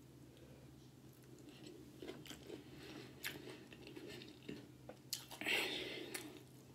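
A person chewing a mouthful of food with lips closed: soft, wet mouth clicks, louder for a moment about five and a half seconds in.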